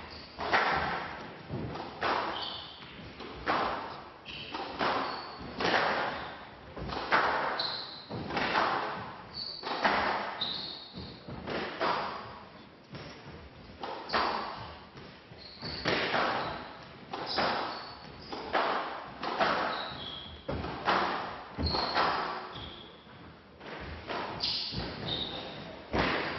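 Squash rally: the ball cracking off racquets and thudding against the front wall and glass walls every second or so, each shot ringing in the hall. Short high sneaker squeaks on the wooden court floor come between the shots.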